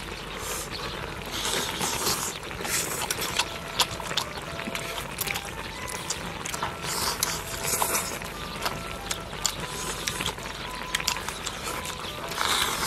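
People eating at a table: chewing and lip-smacking, with many small clicks and brief smacks scattered irregularly.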